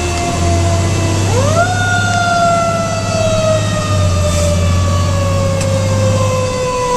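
Fire engine's mechanical siren winding down, spun up quickly about a second in and then coasting slowly down in pitch over several seconds, over the steady low drone of the truck's engine, heard from inside the cab.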